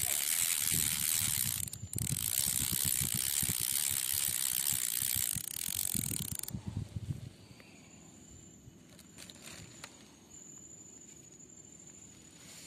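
Fishing reel cranked by hand to wind in the line: a loud, steady mechanical run with a short break about two seconds in, stopping about six and a half seconds in.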